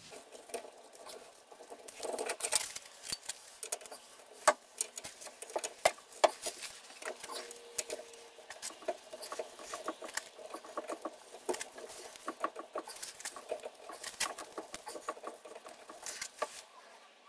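Hand socket ratchet clicking in quick irregular runs as bolts are loosened, with the odd sharper metallic click among them.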